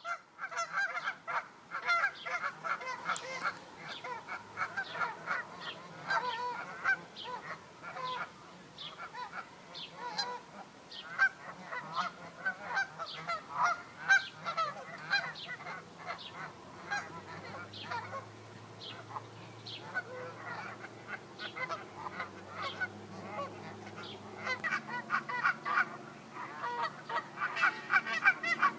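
A large flock of Canada geese honking, many birds calling over one another without a break, the calls growing louder and denser near the end.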